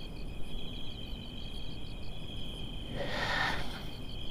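Steady high chirping of night insects, with a woman's short sobbing breath about three seconds in.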